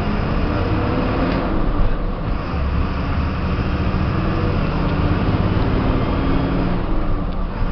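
Diesel engine of a Caio Apache VIP bus on a Volkswagen 17-210 EOD chassis running under way, heard from inside the cab together with road and body noise.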